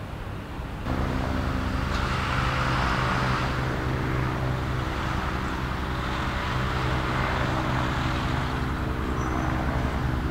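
Bell 412EP twin-turbine helicopter flying overhead, a steady rotor and turbine drone with a fixed, even pitch. About a second in it gets suddenly louder.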